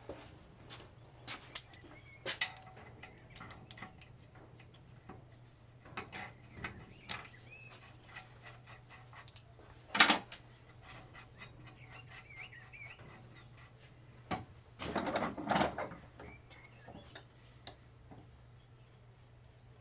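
Scattered clicks, taps and rattles of hand work on metal parts, with one sharp knock about ten seconds in and a rattling scrape about fifteen seconds in. Birds chirp faintly in between.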